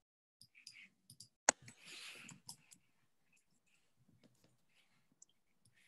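Scattered faint clicks and a brief rustle picked up over a video-call microphone, the loudest a single sharp click about a second and a half in.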